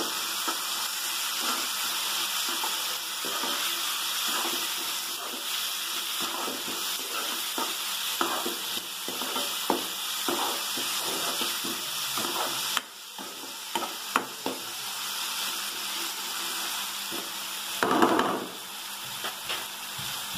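Onions, green chillies and soaked toor dal frying in oil in a steel kadai: a steady sizzle, with a spatula scraping and tapping against the pan as it stirs. The sizzle drops briefly about two-thirds through, and a louder scrape comes near the end.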